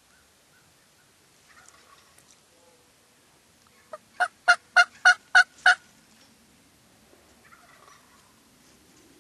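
Wild turkey calling: a loud series of about seven evenly spaced yelps, roughly three a second, about four seconds in, with fainter calls before and after.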